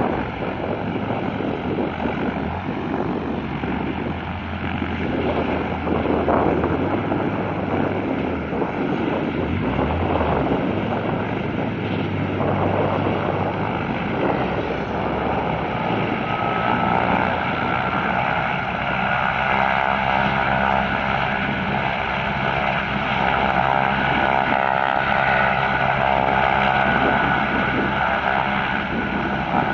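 Helicopter running on the ground: steady turbine engine and rotor noise, with a faint whine that rises slowly in pitch from about halfway through.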